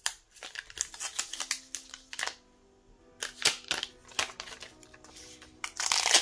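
Thin plastic protective film being peeled off a smartphone's back and screen: irregular crackling and rustling, with a longer, louder crinkle near the end. Soft background music with held notes runs underneath.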